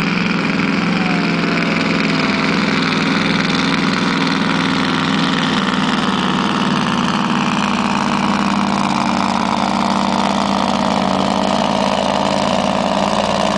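Scania V8 diesel truck engine running at full power while pulling a truck-pulling sled down the track. It runs loud and steady, its pitch slowly falling through the run as the sled's load builds.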